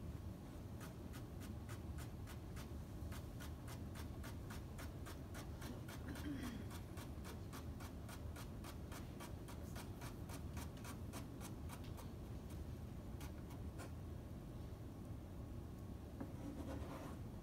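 A knife chopping vegetables on a plastic cutting board in quick, even strokes, about four a second, cutting the vegetables paysanne style into thin slices. The chopping stops about twelve seconds in, with a few last taps after.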